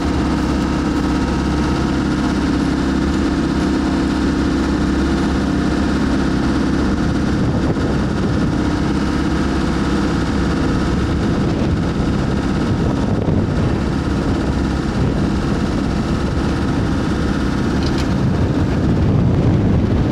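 Dive boat's engine running steadily under way, a constant low drone that swells slightly near the end.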